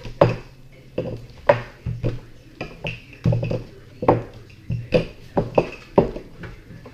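Wooden rolling pin rolling out biscuit dough on a wooden table, knocking and thudding about twice a second, unevenly, with the back-and-forth strokes.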